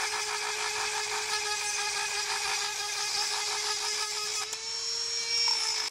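Dremel rotary tool running with a steady whine, its small sanding disc grinding old bushing glue out of the bore of a variable-speed motor pulley; it stops at the very end.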